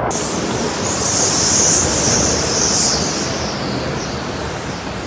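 Hurricane Ian's wind and rain: a steady rushing noise with a high hiss that swells over the first few seconds, then eases.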